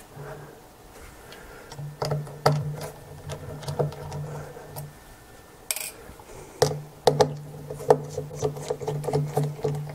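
Small metal clicks and ticks of a Phillips screwdriver turning out the tiny screws of a lens's bayonet mount, with a sharper click about six seconds in. A low steady hum runs under it in two stretches.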